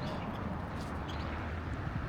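Outdoor ambience: a steady low rumble like distant traffic, with faint, short bird calls over it.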